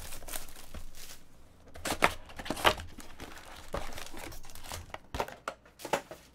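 Foil-wrapped trading-card packs crinkling as they are handled and pulled out of an opened cardboard card box, with several sharp crackles, the loudest about two seconds in.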